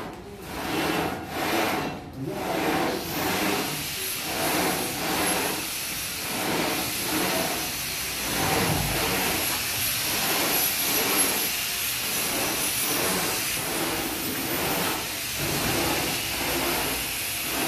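Plate-loaded gym machine being worked through quick repetitions, its carriage running on bearings along the steel guide rails: a rhythmic rolling, rubbing noise about every half second over a steady hiss.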